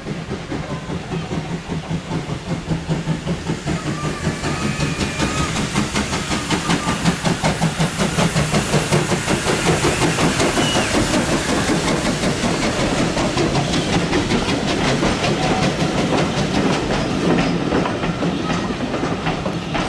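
Small steam tank locomotive, no. 1 'Thomas', working past with a coach: rapid, even exhaust chuffs over a hiss of steam. It grows louder as it comes closer and is loudest about halfway through.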